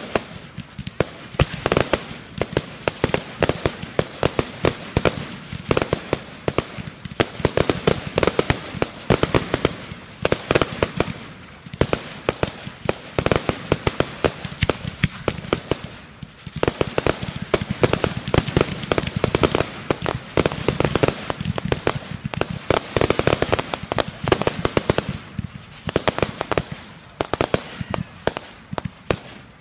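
Fireworks going off in a dense, continuous barrage of sharp bangs and crackling pops. It swells and eases in waves, with brief lulls around a quarter and near the end.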